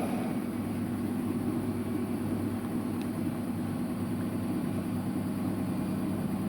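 Washing machine on its spin cycle: a steady low hum from the spinning drum.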